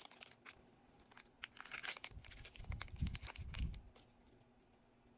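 Small plastic packaging being handled: crinkling and tearing with quick clicks, mostly between about one and a half and four seconds in, with a few soft knocks.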